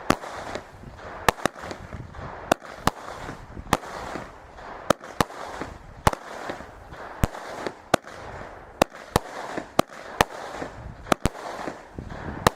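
Battery-cake fireworks firing a steady barrage: sharp reports about one to two a second, with a crackling hiss between the shots.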